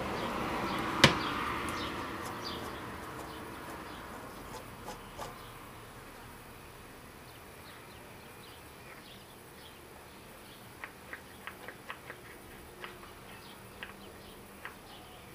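Screwdriver and small metal carburetor parts clicking and tapping on a metal tray, with one sharp click about a second in and a run of light ticks near the end. A buzzing sound is heard at the start and fades away over the first few seconds.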